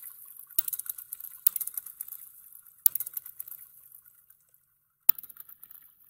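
Sampled sound-design patch from the Soundiron Tbilat Drum Kontakt library being played: four sharp clicks, each trailing off into a crackling, sizzling hiss high in pitch that fades away, the last about five seconds in.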